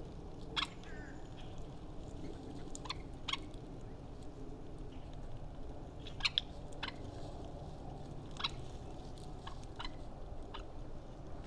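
Birds' beaks pecking and tapping at feeders and a seed cake: about a dozen irregular sharp taps over a steady low background noise.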